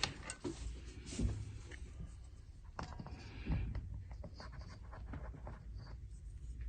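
Scattered small scratching and clicking noises, like objects being handled on a counter, over a low steady hum.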